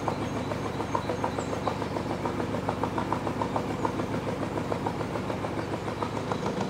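A narrowboat's air-cooled Lister diesel engine running steadily under way, with an even, regular beat.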